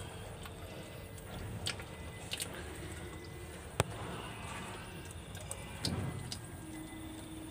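Used gear oil trickling in a thin stream from a truck transmission's drain hole into a plastic drain tub, the drain stage of a transmission oil change. A single sharp click about four seconds in.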